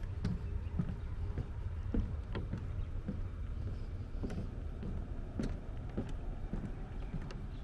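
Walking footsteps on pavement, about two steps a second, over a steady low rumble.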